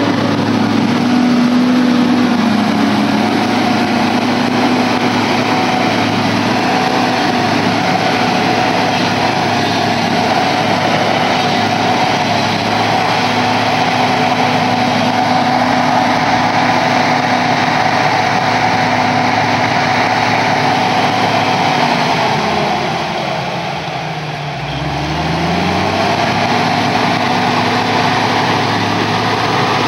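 John Deere tractor's diesel engine running steadily while driving. About 22 seconds in, the revs drop away and the engine note falls, then picks back up a few seconds later.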